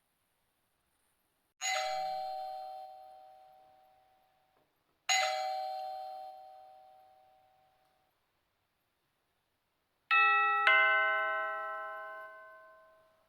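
Doorbell chime: a single chime struck twice, a few seconds apart, each ringing out for about three seconds, then a two-note ding-dong, high then low, ringing out.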